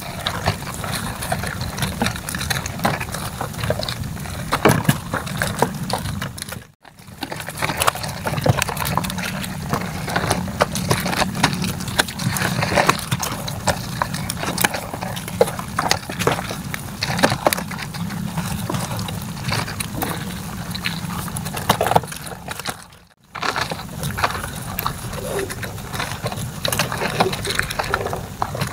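Wet plastic sheeting rustling and crackling as a crab is handled on it. Water sloshes underneath, over a steady low rumble. The sound breaks off briefly twice.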